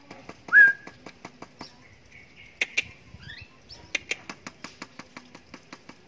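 Javan myna calling: one loud short whistle that rises then holds, about half a second in, followed by a few brief falling chirps and a run of sharp clicks that come about four or five a second near the end.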